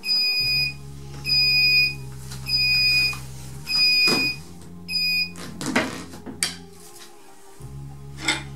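Heat press timer alarm beeping: a high-pitched electronic beep repeated about once a second, five times, signalling that the pressing time is up, then stopping about five seconds in. A few clunks follow as the press is opened.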